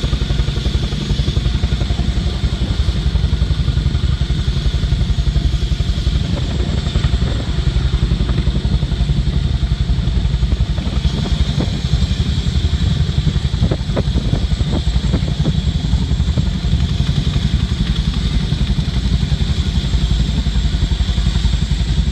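Boeing CH-47 Chinook tandem-rotor helicopter hovering low, its rotor blades beating in a loud, rapid, steady pulse.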